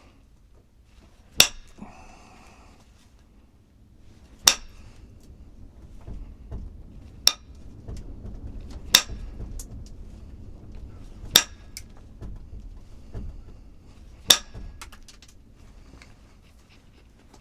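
Six sharp clicks of hard objects knocked or set down on a hard surface, a few seconds apart, with quieter rustling and handling between them.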